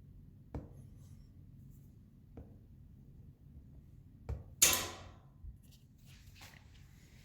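A few soft steps, then a latch click and a door opening with a sharp rattling clatter about four and a half seconds in, followed by a light knock.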